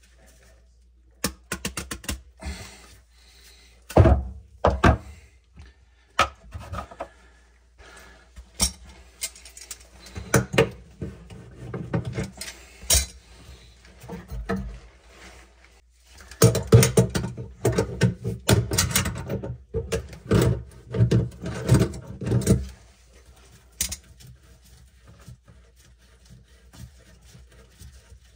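Parts of a bathroom sink pop-up drain being handled and fitted by hand, with clicks, clinks and knocks of metal and plastic. There are two louder knocks about four seconds in, and a busier stretch of rubbing and clattering in the second half that stops a few seconds before the end.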